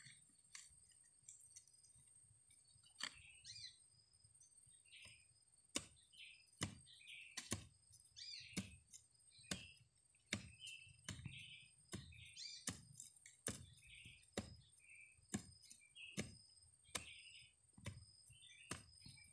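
A digging tool striking into the soil around a small tree's roots, a regular chopping knock about once a second, with small birds chirping between the strikes.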